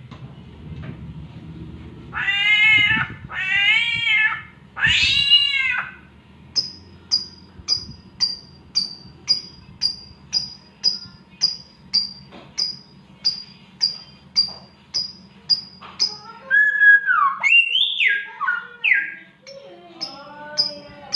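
A samyong bird mimicking a cat's mating yowl: three drawn-out meow-like calls, then a long run of short, sharp, high chirps about two a second, and a few gliding squeals near the end.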